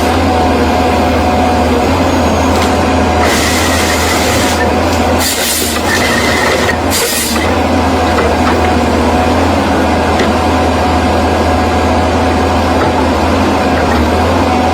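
Heavy bulldozer diesel engine running steadily with a constant low drone, with a few short bursts of hiss in the middle.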